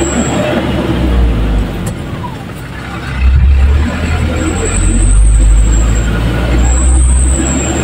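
Truck engine and road noise heard from inside the cab while driving a rough dirt road: a low rumble that eases about two seconds in and swells again just after three seconds.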